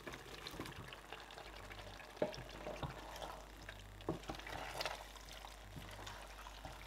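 Wooden spoon stirring thick fried egusi and pieces of cow skin in a pot, with a faint sizzle and a few soft knocks of the spoon against the pot.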